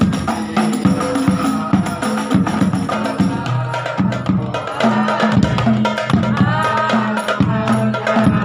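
Rebana frame drums played together in a fast, steady rhythm, with deep booming strokes and sharper slaps, and a melody over them.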